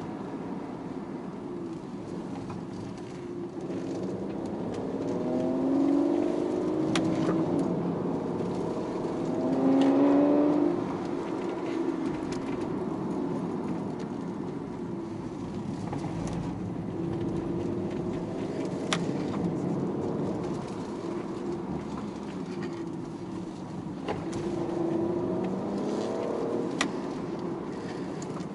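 Car engine accelerating in rising sweeps under steady road noise, loudest about ten seconds in.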